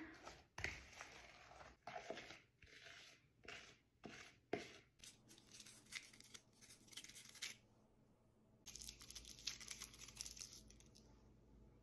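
Faint crinkling and tearing of plastic candy-bar wrappers as small chocolate bars are opened, coming in short spells. At the start there are a few soft knocks and scrapes from a spoon stirring a thick chocolate mixture in a bowl.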